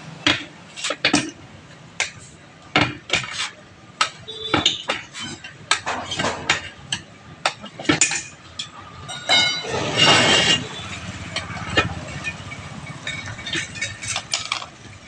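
Metal tools clinking and knocking in a string of sharp, irregular knocks, with a louder rasping noise for about half a second around ten seconds in.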